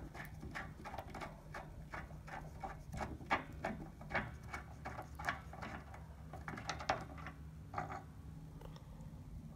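Light clicks and ticks, several a second, as a threaded fitting is unscrewed by hand from a hydraulic floor jack's pump housing; they stop about eight seconds in. A steady low hum runs underneath.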